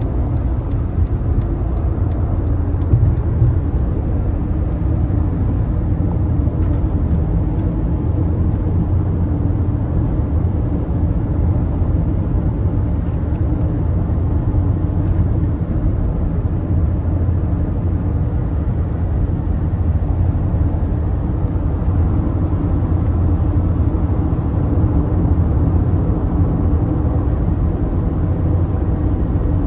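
Car driving along the road, heard from inside the cabin: a steady low rumble of engine and tyres.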